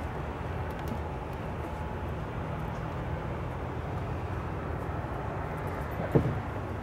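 Steady low outdoor rumble, like distant traffic or wind, with one brief knock about six seconds in.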